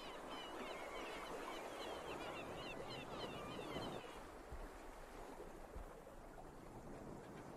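Faint outdoor ambience of birds: many quick chirps over a steady wash of noise, which cut off abruptly about four seconds in, leaving a quieter hiss.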